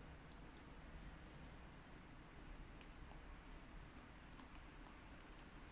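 Near silence with faint scattered clicks, about nine of them, some in quick pairs and threes.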